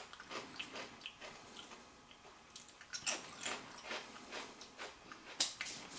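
A person biting into and chewing a thick, tough potato cracker: faint, irregular crunches and clicks, a little stronger about three seconds in and again near the end.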